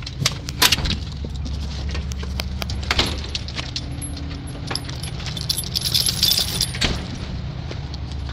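Small metal pieces jingling and clicking in irregular bursts, loudest a little past the middle, over a steady low hum.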